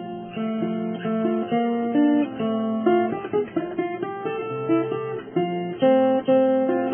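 Background music: guitar playing a melody of plucked notes, one after another.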